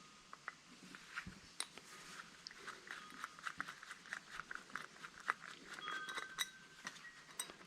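Small metal parts and tools being handled while an old electric angle grinder is taken apart: many light clicks and taps, with a few short metallic rings.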